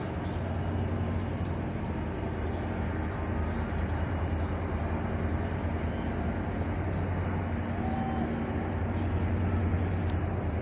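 Steady low drone of the Dorothy Ann–Pathfinder tug-barge's diesel engines running at full speed.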